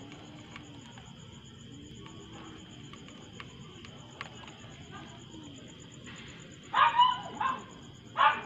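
A dog barking four times in quick succession near the end, over faint background hiss.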